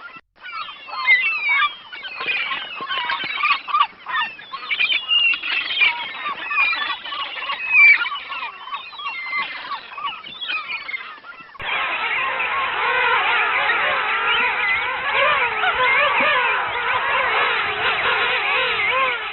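Many birds calling at once, overlapping chirps and calls. About two-thirds of the way through, the sound cuts abruptly to a louder, denser chorus of calls from a different recording.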